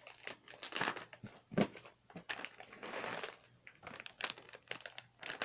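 A plastic cat-treat bag being handled and crinkled, with scattered small clicks and rustles and one sharper knock about a second and a half in.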